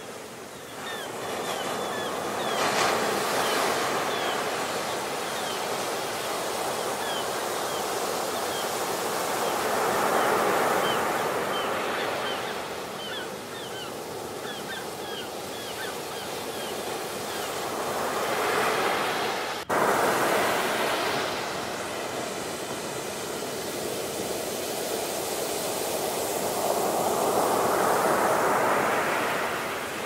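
Ocean surf: waves breaking and washing in as a steady rush of noise that swells and fades about every eight seconds as each wave crashes. About two-thirds of the way through there is a sudden break and jump in level.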